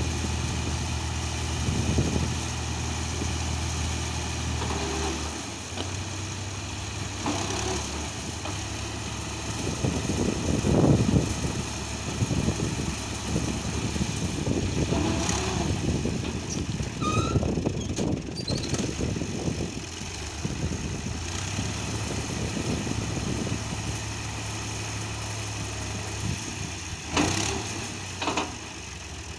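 Tractor engine running at a steady idle, its note dropping about five seconds in and coming back up a little after twenty seconds, with louder clattering in the middle and a couple of sharp knocks near the end.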